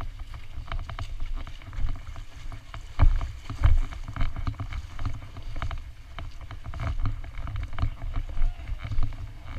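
Legs wading through knee-deep muddy water and then scrambling up a slick mud bank: repeated splashing and sloshing with sudden thumps, under a heavy low rumble on the body-worn camera's microphone. The loudest splashes come about three and three and a half seconds in.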